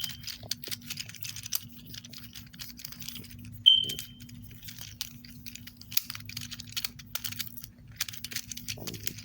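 Small irregular plastic clicks from an infinity cube being flipped over and over in the hands. About four seconds in, a brief high squeak stands out as the loudest sound.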